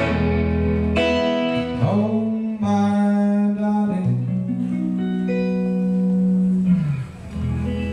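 Acoustic guitar strummed live, chords struck about once a second and then left ringing as the song winds down. A man's voice holds a long wordless note that slides down near the end.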